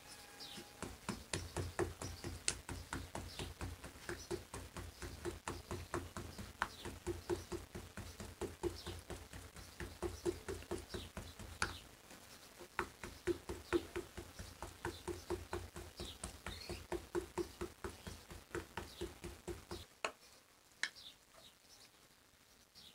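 A stiff bristle brush dabbing rapidly over a thin round of dough on a metal tray: a fast, even run of soft taps that stops about twenty seconds in. Near the end come a few light clicks of a spoon scooping filling from a cast-iron pot.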